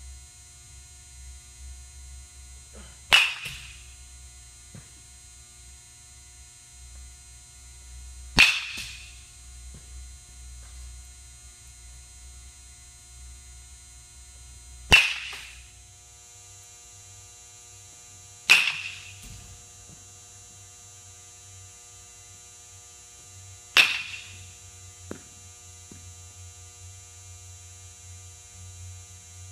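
Baseball bat striking pitched balls in a batting cage, five sharp cracks several seconds apart, each with a short ringing tail, over a steady low hum.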